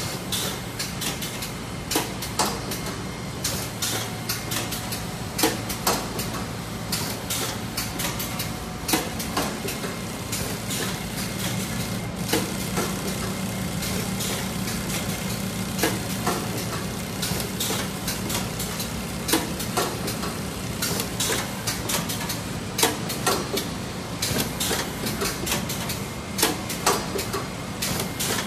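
Lensh LS 7051B automatic rib-making lockstitch unit running: a steady hum from the sewing head and feed mechanism, with frequent sharp clacks and knocks from the machine's moving parts at irregular intervals.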